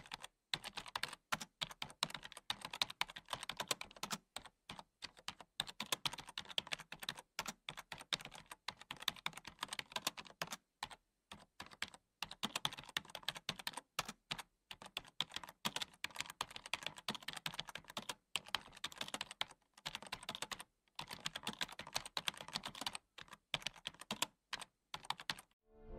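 Keyboard typing clicks, fast and irregular, in runs broken by short pauses, as a typing sound effect for text appearing on screen.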